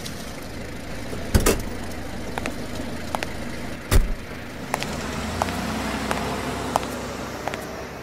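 Audio-drama sound-effect ambience: a steady low traffic-like rumble with a run of light clicks about every three-quarters of a second, and two louder knocks about one and a half and four seconds in.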